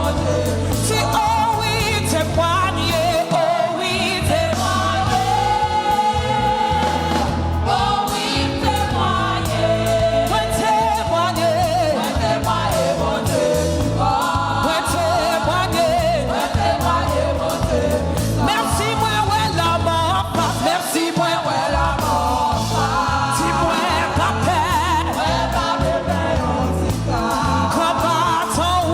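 Gospel worship song performed live: a lead singer and praise-team voices singing over a band with a steady bass line.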